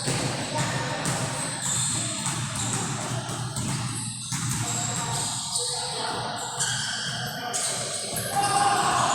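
Basketball gym during a game: a ball bouncing on the court amid crowd voices echoing in the hall, with music playing.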